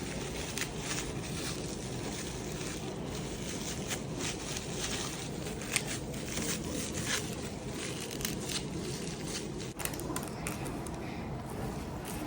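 Crafting materials being handled by hand: irregular crackling, scraping and squishing clicks over a steady low hum.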